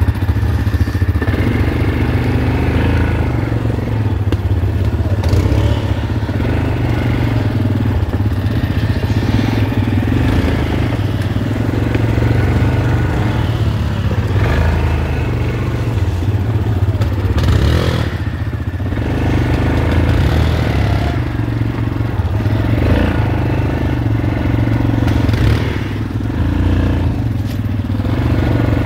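Quad bike (ATV) engine running steadily at low speed while crawling through dense brush, with a few sharp scrapes and cracks from branches.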